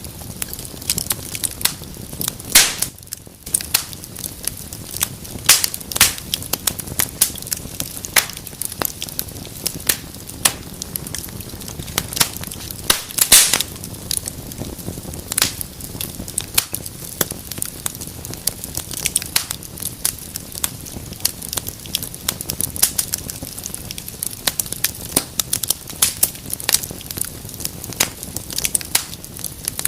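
Wood fire in a fireplace crackling: irregular sharp pops and snaps over a steady soft hiss, with a few louder snaps, the loudest about thirteen seconds in.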